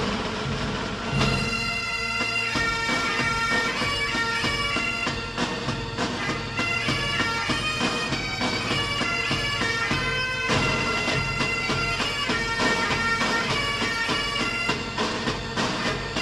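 Bagpipe music: a steady drone under a changing melody, starting abruptly at the top after the previous track fades out.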